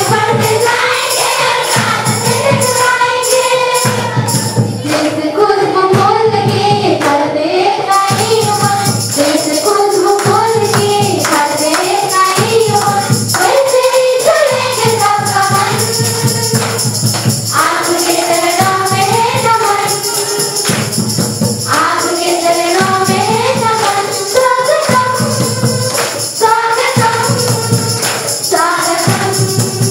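Song with several voices singing a melody over a steady beat, a tambourine jingling through it.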